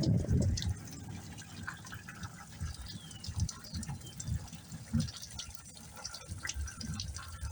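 Rain falling and dripping, with scattered sharp drip ticks and irregular low thuds, and a louder low rumble in the first second.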